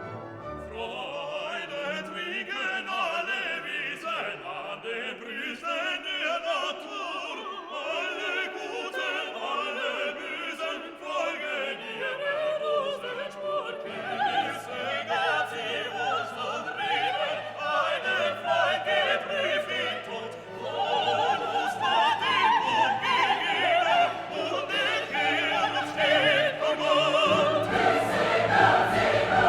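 Classical choral music with orchestra: voices singing sustained, wavering lines, growing fuller and louder in the second half as a low bass part comes in.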